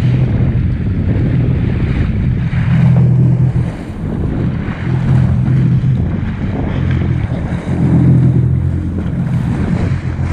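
Sea-Doo RXP-X 300 jet ski engine running under way, its low note swelling and easing every couple of seconds, over rushing wind and water.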